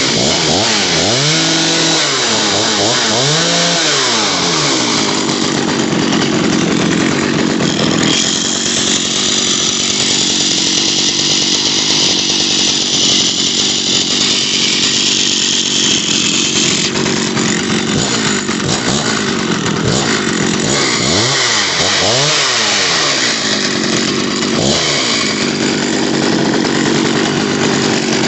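Vintage Jonsered 920 two-stroke chainsaw running, its engine revved up and down in a few quick blips near the start and again about three-quarters of the way through, holding steady in between. It runs out pretty good.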